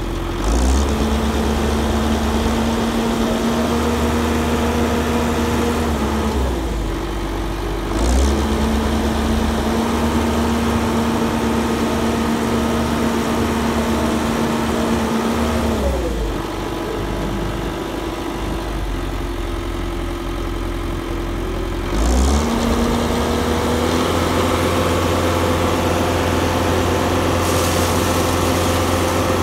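Ajax Fiori Argo 2500 self-loading concrete mixer's engine running, revved up three times: about a second in, at around eight seconds and at around twenty-two seconds. Each time it holds the higher speed for several seconds before dropping back, and a short hiss comes as each rise begins.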